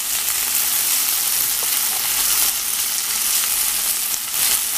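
Sausage slices, onion and turkey sizzling steadily in a hot frying pan as they are stirred with a spatula.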